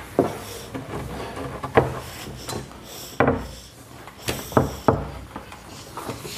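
Heavy solid-wood countertop being shifted into a tight fit against cabinets: several sharp wooden knocks, the loudest a little under 2 s in, just past 3 s and around 4.5 to 5 s, with scraping and rubbing in between as it slides.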